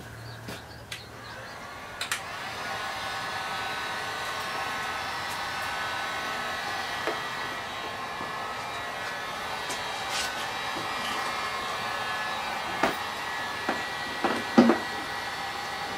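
Electric heat gun blowing steadily, with a fan-motor whine, as it heats a plastic car bumper to soften a dent. A few sharp knocks come near the end.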